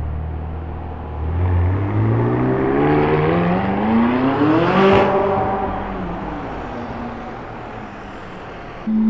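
McLaren 600LT's twin-turbo V8 running low for about a second, then accelerating hard, its pitch climbing steadily for about four seconds to a peak. The note then drops slightly and fades as the car pulls away.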